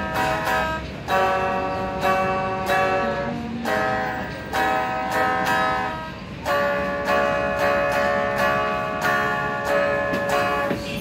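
Electric guitar, a Squier Telecaster, played through a Marshall MS-2R mini amplifier: strummed chords struck in a steady rhythm, a new stroke about every half second to second, each ringing until the next.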